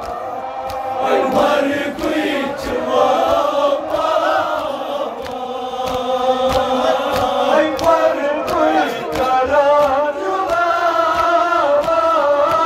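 A Kashmiri nouha, a Shia mourning lament, chanted by male reciters into microphones with a crowd of men singing along. A steady beat of sharp slaps runs under the singing: hands beating chests in matam.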